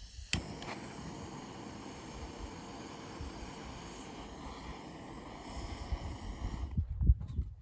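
Handheld butane torch lighting kindling in a folding camp stove: a click as it ignites, then a steady flame hiss that cuts off near the end, followed by a few low thumps.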